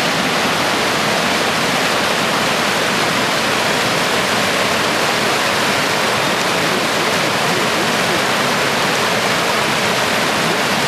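Fast-flowing floodwater rushing and churning, a loud, steady hiss of moving water.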